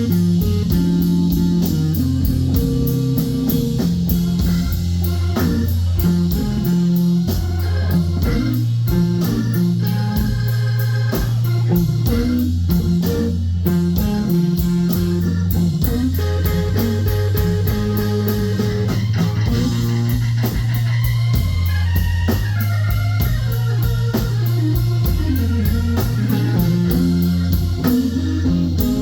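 Live blues band playing a slow instrumental passage: electric guitar lines over bass, drums with steady cymbal strikes, and organ.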